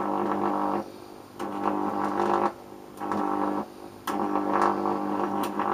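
High-voltage arc buzzing as it plays on a neon test screwdriver, setting its plastic handle alight. The buzz switches on and off: a burst that stops just under a second in, two shorter ones, then a longer one from about four seconds in.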